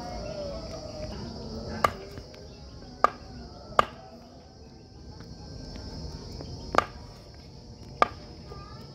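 Long kitchen knife chopping raw meat on a round wooden chopping block: five sharp chops, irregularly spaced, two of them close together.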